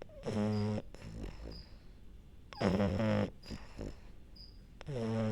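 French bulldog snoring in its sleep: three loud, pitched snores about two seconds apart, with a softer, shorter snore between each.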